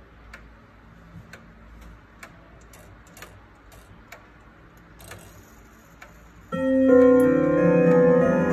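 Baldwin grandfather clock ticking quietly and evenly, about two ticks a second. About six and a half seconds in, its hammers start striking the tuned chime rods of its 12-rod movement, and a chime melody rings out loudly, notes overlapping as they sustain.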